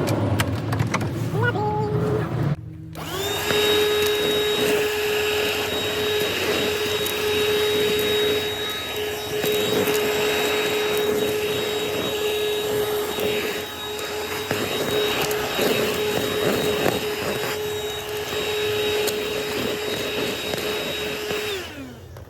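Small vacuum cleaner running steadily with a high motor whine, then switched off near the end and winding down.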